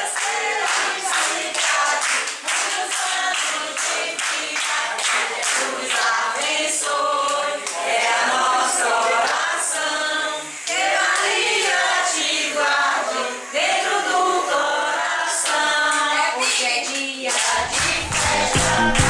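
A group of people singing together and clapping their hands to a steady beat.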